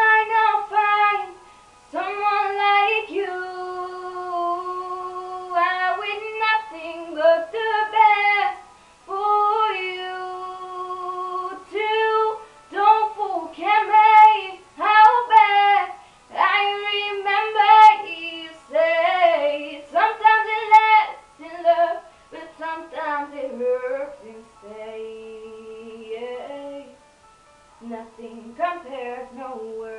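A girl singing a slow ballad solo, holding long notes that bend and slide between pitches, with short pauses between phrases. The voice grows softer for several seconds late on, then picks up again near the end.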